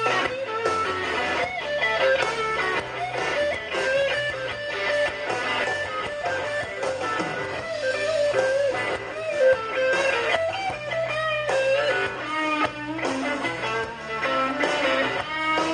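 Live blues-rock band playing an instrumental passage: an electric guitar lead with bending, wavering notes over bass guitar and drums.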